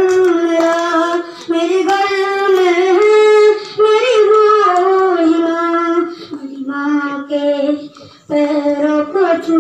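A boy singing unaccompanied into a microphone, holding long drawn-out notes with a slight wavering, in phrases separated by short breaths. The melody settles lower in the second half.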